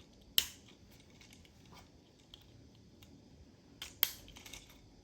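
Small plastic building-brick pieces clicking and snapping together as the toy tractor's wheels are pressed on: one sharp click about half a second in, then a few quick clicks near the end, with faint handling ticks between.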